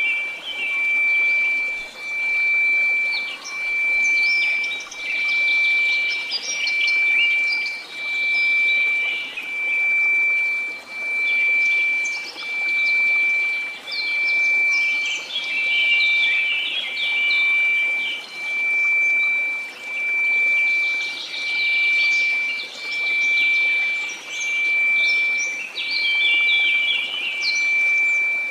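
A steady synthesized pure tone of about 2334 Hz, swelling and fading about once every one and a half seconds, over a soft white-noise hiss. Birdsong chirps play on top of it throughout.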